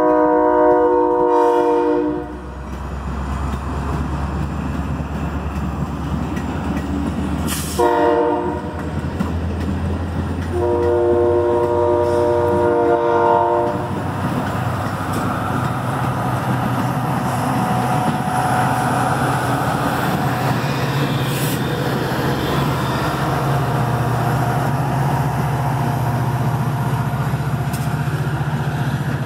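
Metra commuter train's diesel locomotive horn sounding three times: a long blast at the start, a short one about eight seconds in, and a long one about eleven seconds in. Under and after the horn, the passing train rumbles steadily, with a low engine drone in the second half.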